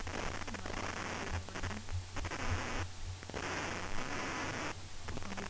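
Bursts of static-like hissing noise, each about a second long with short gaps between them, over a steady low electrical hum with a few soft thumps.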